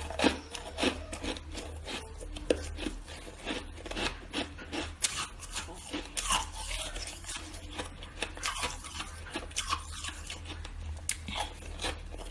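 Shaved ice being chewed close to the microphone: irregular, rapid crunches, several a second.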